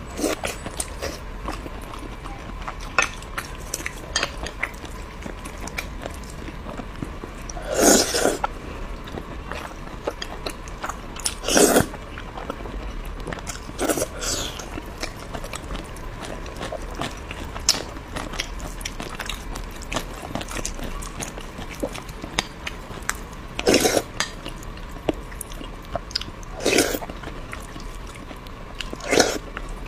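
A person eating close to the microphone: steady chewing and biting with many small mouth clicks, and about six louder short mouth sounds spaced a few seconds apart.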